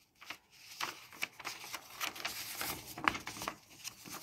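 Paper instruction leaflet rustling as it is handled and unfolded: a run of irregular crisp rustles and crinkles starting about a quarter second in.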